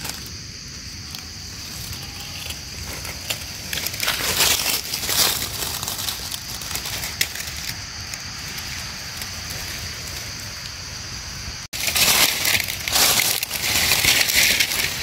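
Dry leaf litter crunching and rustling in bursts as someone moves and digs through the forest floor gathering mushrooms, over a steady high-pitched hum that drops out for a few seconds midway.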